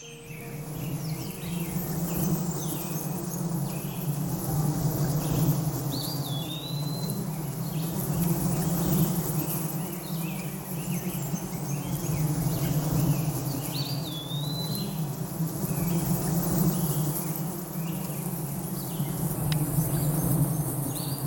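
Honeybees buzzing around a hive entrance, a dense steady low hum. A bird gives a short whistled call that rises and then drops, three times.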